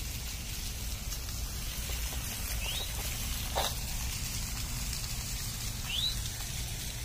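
Small waterfall and fountain splashing steadily into a pond, with a bird giving a short rising chirp three times, about every three seconds.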